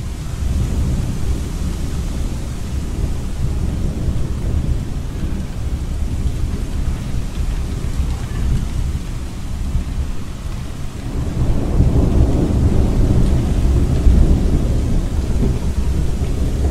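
Steady deep rumble with a rain-like hiss, as of a thunderstorm; it swells louder about eleven seconds in.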